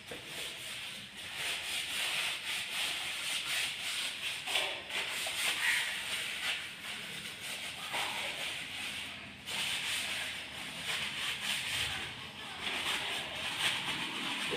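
A cloth wiping and scrubbing the metal front fork leg and wheel hub of a Hero Honda motorcycle, a scratchy rubbing in uneven strokes with a few brief pauses.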